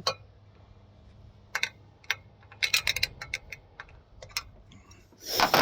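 Irregular sharp clicks and light taps from hand-tool work on the Hilux snorkel mount as the self-tapping screw is fastened, with a short rush of noise near the end.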